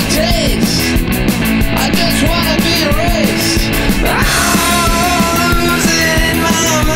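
Punk rock band music with a steady drum beat. A bending melodic line gives way about four seconds in to held, sustained notes.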